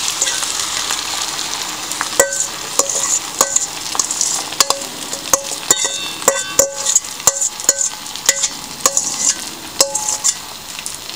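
Matzo brei batter of wet matzo and egg sizzling as it goes into hot oil in a frying pan. From about two seconds in, a metal utensil scrapes and knocks against the steel bowl and pan again and again, each knock a short ringing clink.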